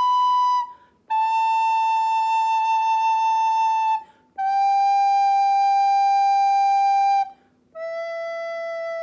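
Soprano recorder playing long held notes that step down: the end of a B, then A, G and E, each held about three seconds with short breaks between. The last note, the low E, is a little quieter.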